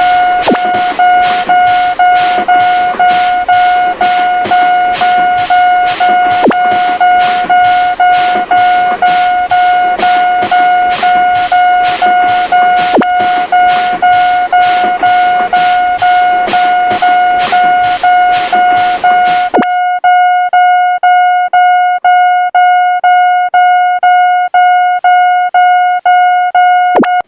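Railroad crossing warning bell ringing in a fast, even rhythm, about two strikes a second, with the rushing noise of a passing train under it. About two-thirds of the way through the train noise cuts off suddenly and the bell rings on alone, stopping just before the end.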